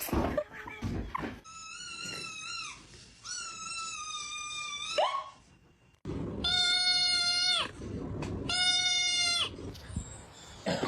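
A pet animal making four long, drawn-out calls: two higher-pitched ones, then, after an abrupt break, two lower, louder ones. A few short scuffling noises come at the very start.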